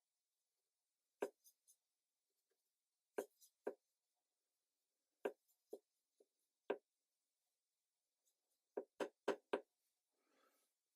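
Light, sharp taps of a paintbrush on a hard surface, coming in small groups of three or four, with a quick run of four taps near the end followed by a brief soft rustle.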